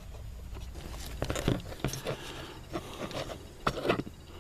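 Scattered light clicks and scrapes of small sensor parts being handled and set down, over a low steady hum.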